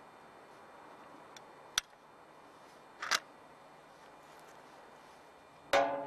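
Two sharp clicks against a faint hiss: a log sawmill guide rail holder's height-adjustment rack being set by hand, one click about two seconds in and another about three seconds in. A louder clatter begins right at the end.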